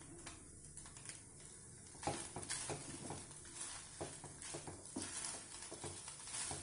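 Wooden spatula stirring and scraping cooked poha with grated coconut around a pan on a gas stove: soft, irregular scrapes and taps, starting about two seconds in.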